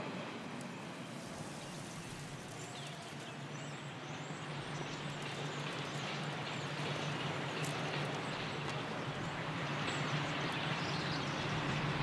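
Steady city traffic rumble with a low hum, gradually getting louder, with faint high bird chirps now and then.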